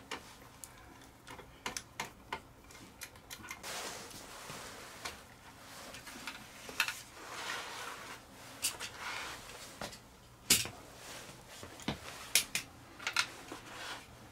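Irregular clicks, taps and scrapes of hands and a screwdriver working on the sheet-metal case of a CCTV DVR while handling its lid and hard drive, with the loudest knock about ten seconds in.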